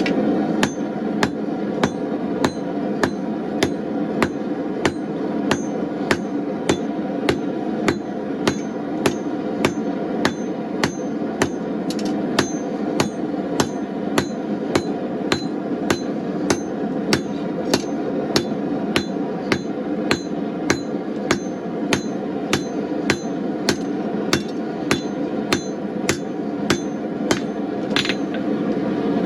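Blacksmith's hammer striking hot steel on an anvil at a steady pace, about three blows every two seconds, each with a short metallic ring. A gas forge burner roars steadily underneath.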